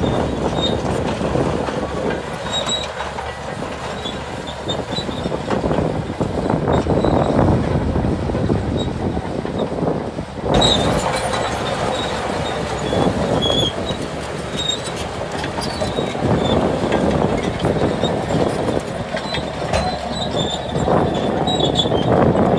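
Shantui DH17C2 crawler bulldozer working: engine running under load while the steel tracks clank and squeal continuously.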